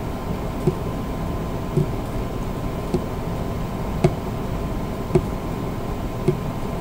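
Steady mechanical room hum with a faint thin whine, and a soft click about once a second.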